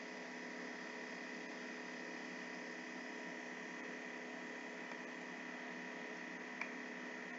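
Steady electrical hum with a faint hiss under it, made of several fixed tones and unchanging throughout. A single faint click about six and a half seconds in.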